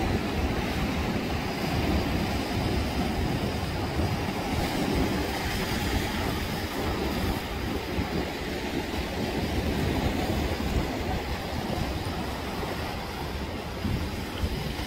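Sea surf breaking and washing over shore rocks, with wind rumbling on the microphone: a steady, unbroken noise.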